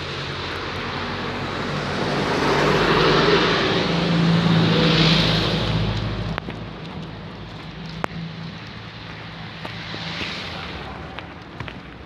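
A large truck driving past, its engine hum and rushing noise swelling to a peak about four to five seconds in, then fading away.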